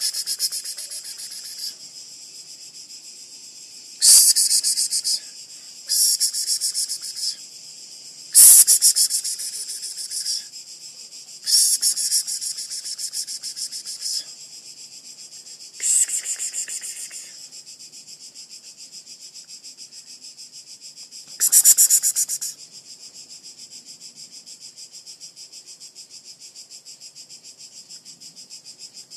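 Insects buzzing steadily in a high, finely pulsing drone, with seven louder bursts of high buzzing, each one to two seconds long, starting sharply and fading away.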